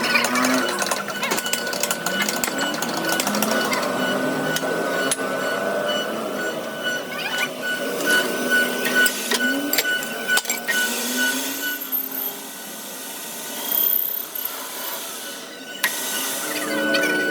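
A workshop machine running with a steady high whine, with scattered metallic clicks and knocks. It quiets down about twelve seconds in and picks up again near the end.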